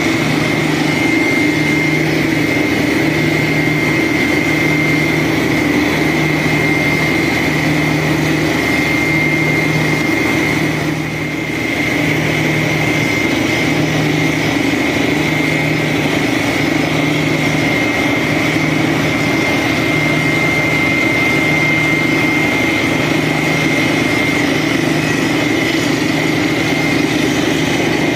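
Borewell drilling rig running steadily, with a regular low throb about every second and a half and a steady high whine over it.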